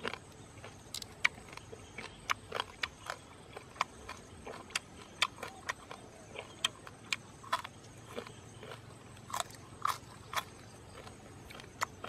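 Close-up sounds of someone chewing grilled bird: short, irregular crunches and mouth clicks, about two to three a second.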